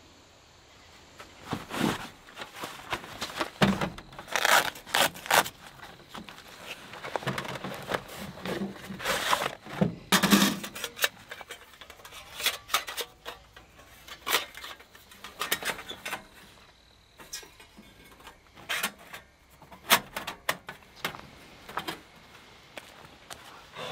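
Steel panels of a Fire Maple Maverick flat-pack wood stove clinking, scraping and knocking as they are handled and slotted together in irregular bursts, with a few footsteps on leaf-covered ground near the end.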